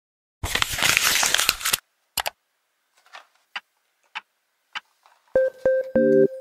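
Hands handling packaging: a loud crinkling rustle starting about half a second in and lasting a little over a second, then a few faint scattered clicks and taps. Soft keyboard music with a steady beat comes in near the end.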